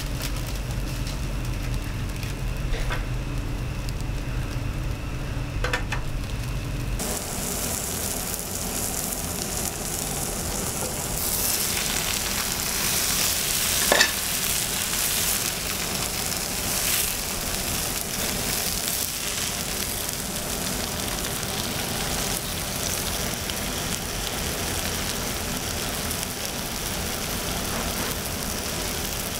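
Gochujang-glazed pork belly sizzling on a hot griddle plate: a steady hiss starts about seven seconds in, grows louder a few seconds later, and has a sharp click around the middle. Before it there is a low steady kitchen hum with a few light clicks.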